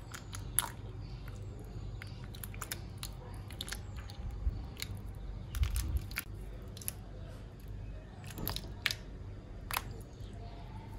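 Water poured from a plastic bottle into the cells of a plastic ice-cube tray, with scattered small clicks and crackles.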